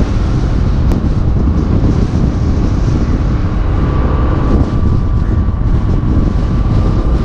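Wind buffeting the microphone of a moving motorcycle, heavy and steady, with the bike's engine and road noise underneath. A faint steady high whine comes in about four seconds in.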